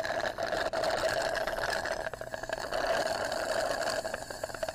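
A drink being sucked up through a straw: a steady slurping with many small crackles throughout.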